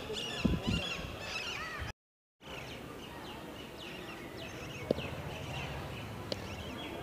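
Small birds chirping and calling in quick, short notes over a faint low rumble, with the sound cutting out for a moment about two seconds in. Two soft clicks come in the second half.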